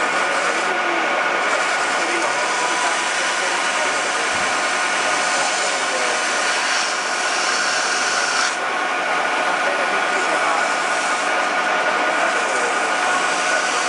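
Metal lathe running with a steady whine while abrasive paper is held against the spinning steel rod, giving a continuous rubbing hiss as the rod is polished.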